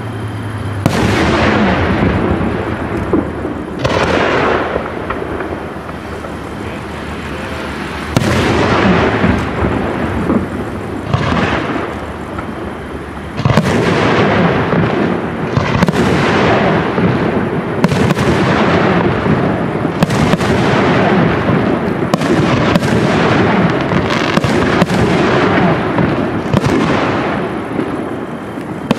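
Aerial firework shells bursting, each bang followed by a long echoing tail. A few widely spaced bursts come in the first half, then a quick run of bursts about once a second from about halfway through.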